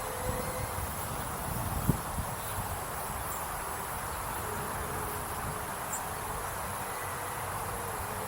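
Small 1S electric ducted fan of an RC plane whining in flight, its buzzing pitch rising and falling, over wind rumbling on the microphone. A single knock about two seconds in.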